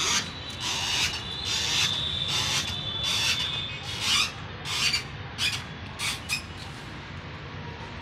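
About ten rasping scrapes in an uneven rhythm, close to one a second at first and quicker around the middle, stopping a little after six seconds in. A faint steady high-pitched whine runs behind them through the first half.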